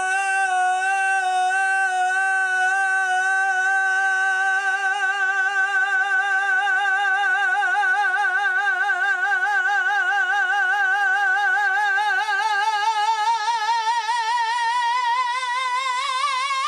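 A single sung note held on one breath, with vibrato that grows wider as it goes, the pitch climbing upward over the last few seconds.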